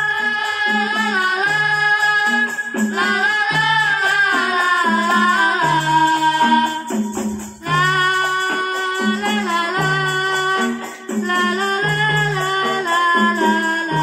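Qosidah (Islamic devotional song): women's voices singing a melody through microphones and loudspeakers, over a steady beat with a repeating two-note bass line and light percussion.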